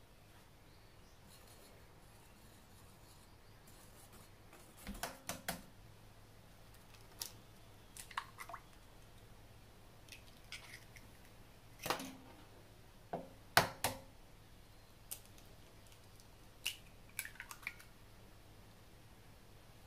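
Eggs being cracked open into a glass measuring jug of milk: a series of sharp taps and shell cracks, with short quiet gaps between them.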